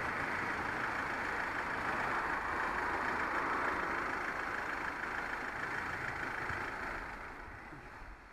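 Motor vehicle engine running close by, fading away over the last second or so.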